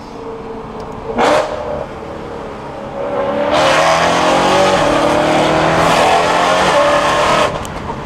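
BMW E92 M3's 4.0-litre V8 accelerating hard, heard from inside the cabin. From about three seconds in the engine note climbs in pitch for roughly four seconds, then drops away abruptly as the throttle closes. A brief loud rush of noise comes about a second in.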